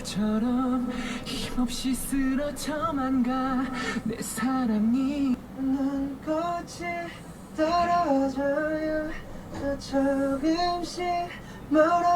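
A young man singing a cappella: a solo melody of held and gliding notes in short phrases, with no instruments behind it.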